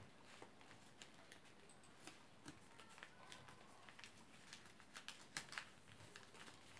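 Faint crinkles and small taps of white paper being folded and creased by hand against a wooden tabletop, a few a little louder about five seconds in.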